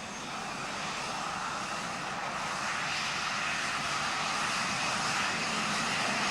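Airplane engines running at high power, growing steadily louder.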